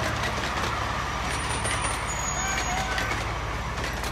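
Small engine of a miniature ride-on railway locomotive idling, a steady low hum with an even hiss over it.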